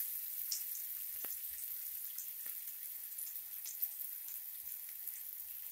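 Chopped onion sizzling in a spoonful of hot oil in a pan: a steady faint hiss with a few scattered crackles.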